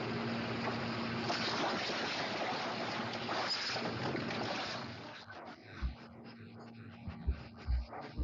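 Rushing wind-and-water noise with a faint steady hum. It thins out from about five seconds in, leaving a few short low thumps.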